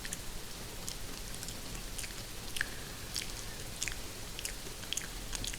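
Rain falling on a greenhouse roof: a steady hiss with scattered sharp drips. Close-miked, irregular mouth and chewing clicks sound over it.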